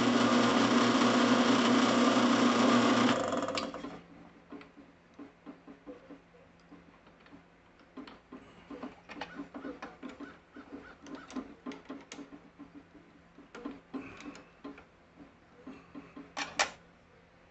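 A drill press motor runs loud and steady for about three seconds, then is switched off and spins down. After that come many small metallic clicks and taps as a drill bit is fitted and the chuck is worked by hand.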